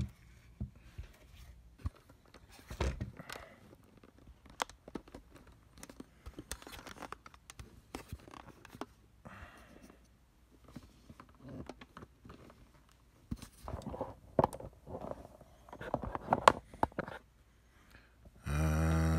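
Handling noise: small clicks, scrapes and crinkling plastic as a clamp meter, its zip case and AAA batteries are handled. Near the end a short, loud buzzing tone.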